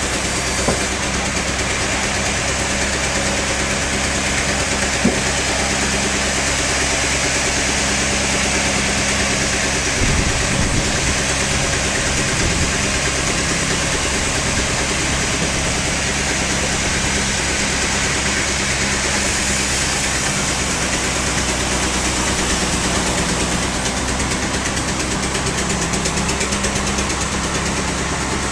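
Sawmill machinery running steadily: a constant mechanical hum with a hiss above it, with a few light knocks about 10 seconds in.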